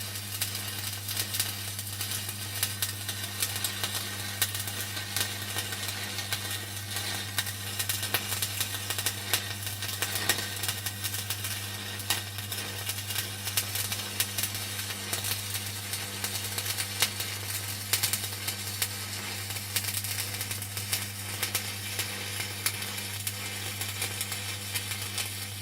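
Stick-electrode welding arc crackling and sizzling steadily while the cap weld is laid on the joint, over a steady low hum.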